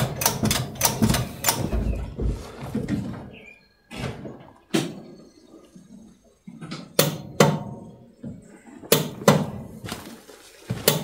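Irregular knocks and clatter: a quick cluster of sharp hits in the first second or so, then single knocks spread out across the rest.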